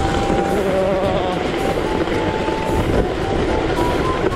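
Plastic sled sliding fast down a groomed snow slope: a loud, continuous scraping rumble of the sled's hull over packed, ridged snow.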